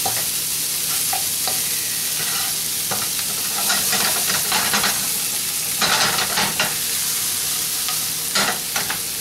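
Chopped onion and bell pepper sizzling in olive oil in a nonstick frying pan, a steady hiss, with a spatula scraping and stirring them several times, mostly in the second half.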